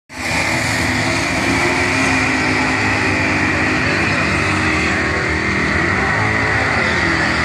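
Chevrolet Malibu and Nova drag cars doing burnouts: a steady high tyre screech over the engines running hard.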